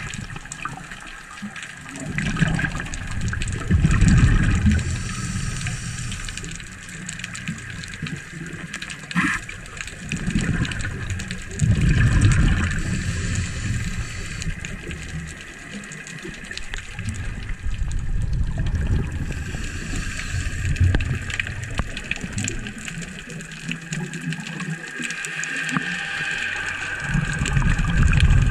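Water and bubbles heard underwater through a diver's camera: a low rushing that swells in bursts every few seconds, loudest about four and twelve seconds in, over a steady hiss.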